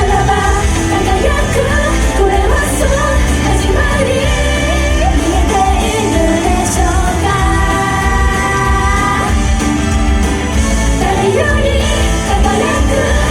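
Loud idol pop music with female singing over a heavy bass line, played through a live-house PA.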